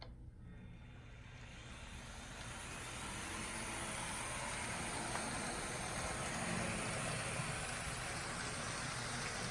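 N scale model train with a pair of Atlas SD35 diesel locomotives running on the track, a steady mechanical running noise that grows louder over the first few seconds and then holds steady.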